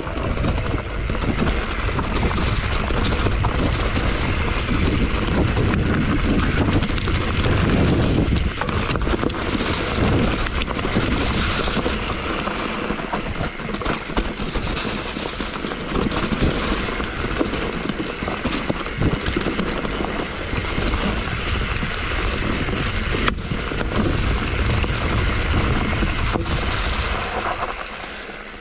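Bike descending a rough trail at speed: wind rushing over the on-board microphone, with the tyres and bike rattling and knocking over the ground throughout.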